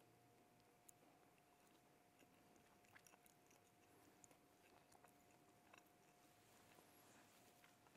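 Near silence with faint scattered clicks and chewing, which fits communion bread being eaten, over a faint steady hum.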